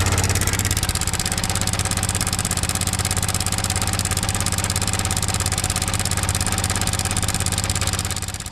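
Yamaha MT15's 155 cc single-cylinder engine running steadily with a fast, even pulsing beat and a bad, irritating noise from a timing chain gone loose because the cam chain tensioner has failed. The sound fades away near the end.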